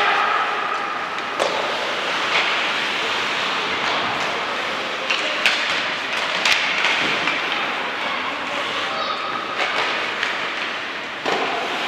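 Ice hockey play: skates scraping on the ice as a steady hiss, with a few sharp knocks of sticks and puck.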